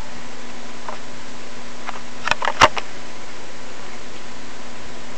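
Ceiling fan running: a steady airy hiss with a low motor hum. A short cluster of sharp clicks comes about halfway through, the last one loudest.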